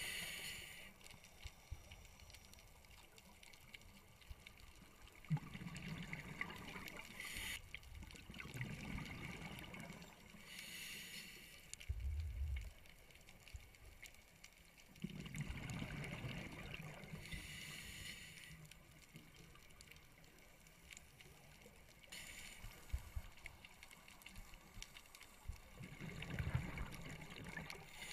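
Scuba diver breathing underwater through a regulator: slow breaths in and out, with several bursts of exhaled bubbles rushing past a few seconds apart.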